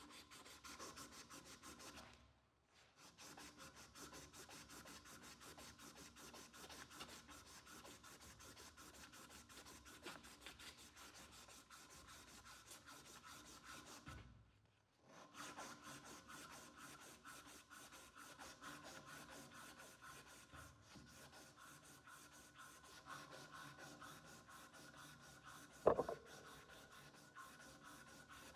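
Faint, fast back-and-forth rasp of a cloth-backed sanding strip worked shoeshine-style over a kukri's wooden handle, pausing twice. About 26 s in there is a single sharp click.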